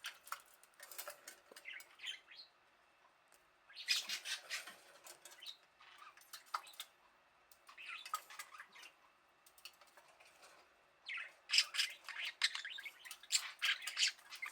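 A budgerigar bathing, flapping its wings and splashing water in bursts, with chirps mixed in. The longest and loudest burst starts about eleven seconds in.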